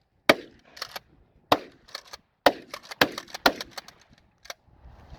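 Remington 870 Marine Magnum 12-gauge pump-action shotgun firing a quick string of shots, about five loud reports within four seconds, with lighter sharp cracks between them.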